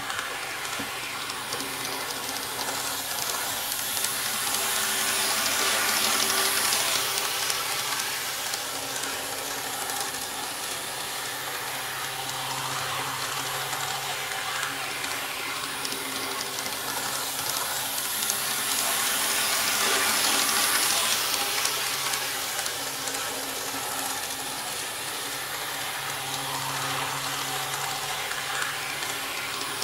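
N-gauge KATO KiHa 58 model diesel railcar running on KATO Unitrack, a steady rushing hiss of wheels on rail and motor, swelling louder twice about 14 seconds apart as it laps the oval. The track is laid directly on the tabletop with no sound insulation underneath.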